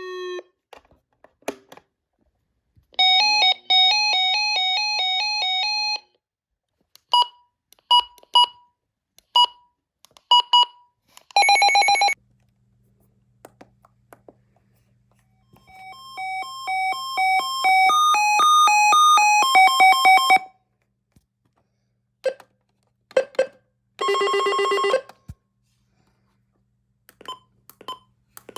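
Electronic siren sounding a series of test tones: a fast high-low two-tone alternation, a run of short single chirps, a quick warble, then a longer sequence of tones stepping up and down in pitch, ending with more chirps and a short buzzing burst.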